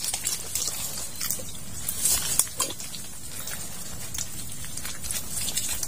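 Rustling through mangrove branches and scattered clicks and crackles as hands work a green nylon-net crab trap loose among the roots, with a few louder snaps about two seconds in.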